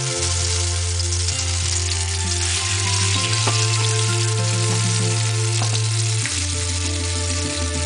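Marinated chicken legs sizzling in hot oil in a frying pan as the pieces are laid in, over background music with a slow bass line.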